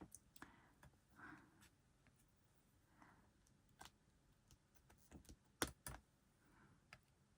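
Near silence with faint, irregular clicks and taps, the two loudest close together about five and a half seconds in.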